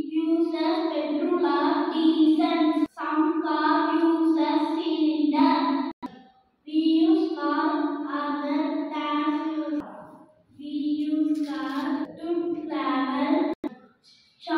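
A boy singing solo and unaccompanied in four phrases of about three seconds each, holding long notes, with short breath pauses between the phrases.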